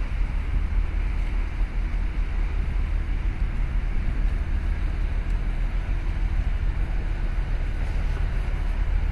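Steady low hum of a passing cement carrier's engine, mixed with wind buffeting the microphone and a hiss of water.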